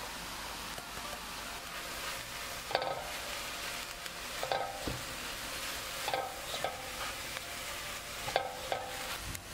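Sliced mushrooms and peas sizzling in oil in a pot while a spoon stirs them, with several short ringing clinks as the spoon knocks against the pot.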